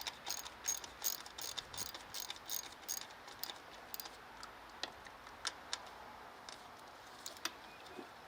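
Socket ratchet clicking in a quick even run of about three clicks a second as a bolt is turned, then a few scattered clicks.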